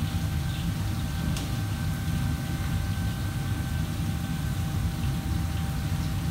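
Steady low mechanical hum with a faint, steady high whine above it, and a light click about a second and a half in.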